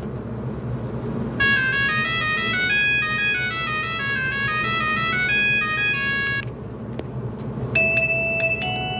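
Wellcom W890 mobile phone ringtones: a bright synthesized melody of quick stepping notes starts about a second and a half in and stops at about six and a half seconds. Near the end the next ringtone begins with struck, bell-like notes. A steady low hum runs underneath.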